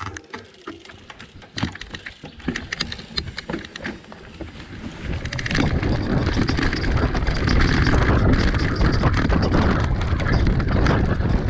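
Mountain bike riding a dirt forest trail: for about the first five seconds, scattered clicks and rattles of the bike over the ground, then from about five and a half seconds in a loud, steady rush of wind on the microphone and tyres rolling on dirt at speed.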